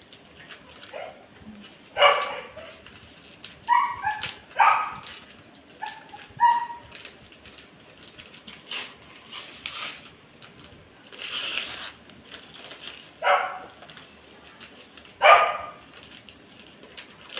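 A small dog barks several times in short yips, in scattered bunches. Through the middle, wrapping paper crinkles and tears as a present is unwrapped.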